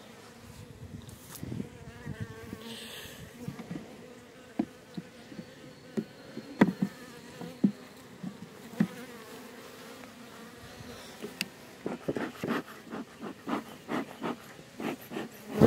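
Honeybees buzzing steadily around an open hive, with scattered wooden knocks and clicks of hive frames being handled, coming in a quick run near the end.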